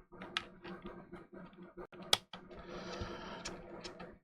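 Small plastic clicks and taps as a PlayStation 5 DualSense controller's buttons and shell parts are fitted and handled, with two sharper clicks about half a second and two seconds in and a few lighter ones near the end.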